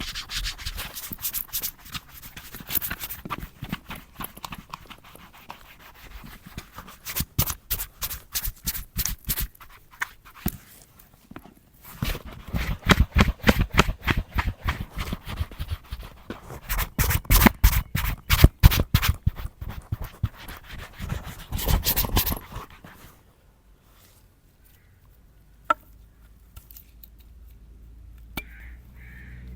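Quick back-and-forth scrubbing strokes on a leather boot, several strokes a second in runs with short pauses between. The scrubbing stops about 22 seconds in, leaving only a couple of light taps.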